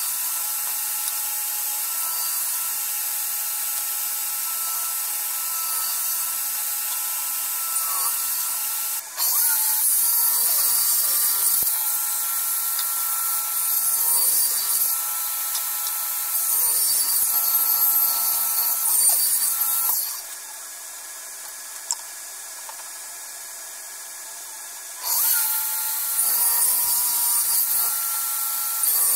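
Table saw running with a steady whine, and the rough hiss of the blade cutting through wood as boards are pushed through on a crosscut sled. The noise drops away abruptly about two-thirds of the way through, with a single click in the lull, and starts up again near the end.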